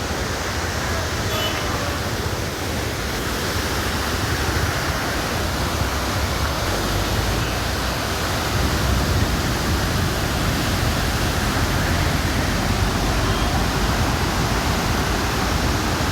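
Steady, loud rush of falling water from a waterfall, an even hiss over a deep rumble.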